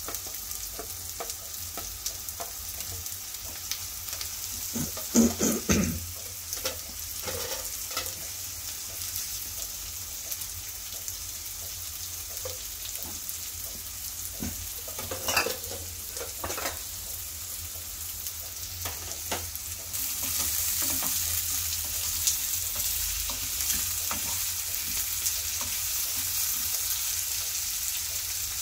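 Potato cubes frying with onions and spices in a nonstick frying pan, sizzling steadily, with a spatula knocking and scraping against the pan a few times. The sizzle grows louder about two-thirds of the way through.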